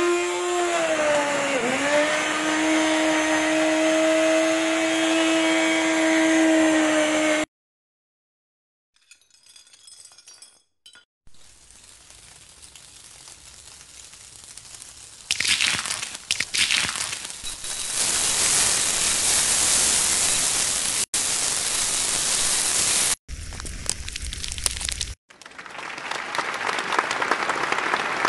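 An electric mixer grinder runs steadily with a humming motor pitch for about seven seconds, then stops. After a pause, hot oil sizzles loudly as tempering spices are fried, with a couple of brief breaks.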